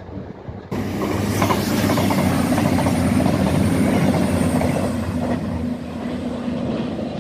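A CrossCountry Voyager diesel multiple unit passing close at speed: a loud rush of wheels on the rails over a steady low engine hum, cutting in suddenly under a second in and easing slightly near the end as the train moves away.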